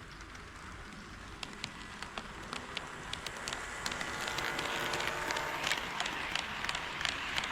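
HO scale model train running on KATO Unitrack, getting louder as it approaches, its wheels clicking sharply over the rail joints, with a faint motor whine in the second half.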